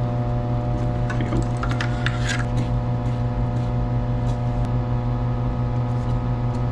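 Steady machinery hum with a strong low drone and several even tones above it, with a short spell of light clicking and rattling from handled parts about one to two and a half seconds in.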